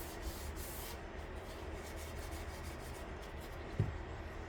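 Sandpaper rubbed by hand over the primed hood of a 1958 Johnson outboard motor, a soft scratchy rubbing that works the sand-fill primer down to find low spots. There is one brief knock near the end.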